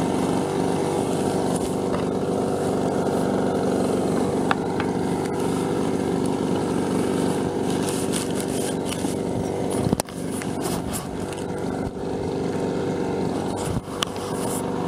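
Leaf blower running steadily at a constant pitch, blowing air through a home-made mesh tumbler to clean alpaca fleece. A few sharp knocks cut across the drone.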